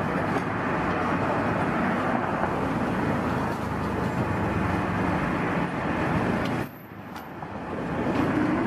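Steady outdoor street background noise, a dense traffic-like din, that drops away for about a second roughly seven seconds in before coming back.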